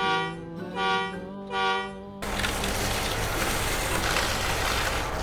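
Vehicle horn sounding three short toots in a row, followed about two seconds in by a steady, loud noise.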